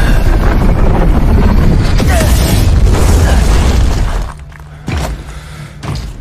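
Loud film sound effect of an explosive blast, a booming rumble that lasts about four seconds and then drops away sharply, followed by a couple of short thuds.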